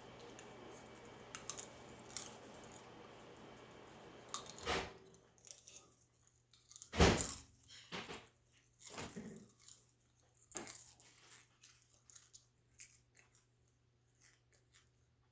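Scattered small clicks, knocks and rustles of objects being handled, the loudest a sharp knock about seven seconds in. A steady low hiss under them stops about five seconds in.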